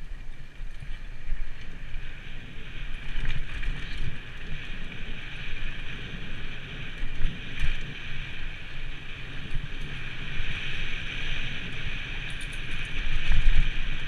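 Wind buffeting the camera microphone while a mountain bike rolls fast over bare rock slab, a steady hiss of tyres on stone under an uneven low rumble that surges and dips.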